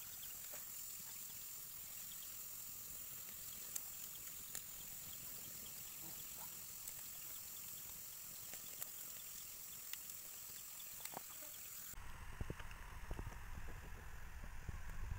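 Steady high-pitched insect chorus with scattered faint clicks. About twelve seconds in, it gives way to a wood fire crackling over a low rumble of flames.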